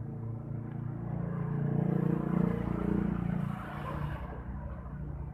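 Small electric gear motor running on test, driving the flapping wings of a robotic bird-shaped water-gallon pump; steady, louder in the middle, easing off after about four seconds.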